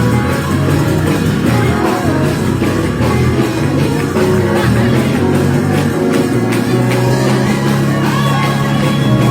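Music with guitar and bass, with some singing.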